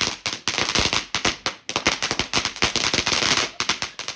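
A garden firework going off in a fast, continuous run of sharp cracks and bangs, many per second, with a crackling hiss behind them and a couple of brief lulls.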